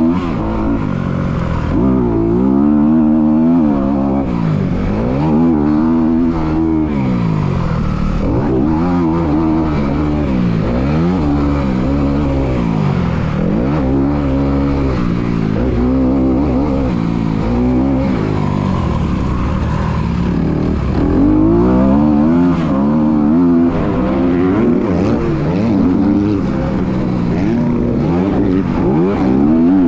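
Dirt bike engine heard up close from the bike, revving up and dropping back over and over as the rider works the throttle through the track.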